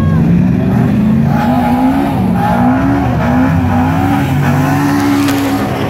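Car engines running and revving, their notes rising and falling.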